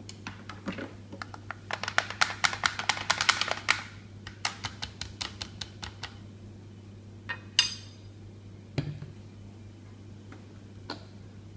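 A quick run of light clicks and scrapes as the butterfly whisk is worked loose from the Thermomix blades in the batter-filled bowl. Then a few scattered knocks, a ringing clank of the metal whisk set down on a plate, and a dull thump, over a low steady hum.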